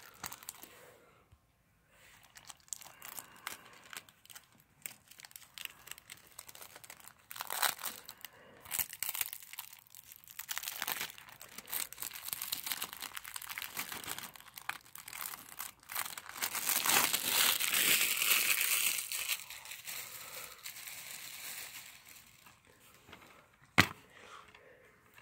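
Plastic shrink wrap being torn and peeled off a sealed DVD case, crinkling and crackling in irregular bursts, with a long, loud stretch of crinkling about two-thirds of the way through. A single sharp tap near the end.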